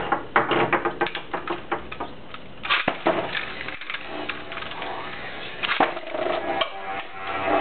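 Beyblade spinning tops and ripcord launchers clicking and clattering on a plastic stadium. There is a run of rapid clicks in the first few seconds, then sharp snaps about three and six seconds in as tops are launched into the dish.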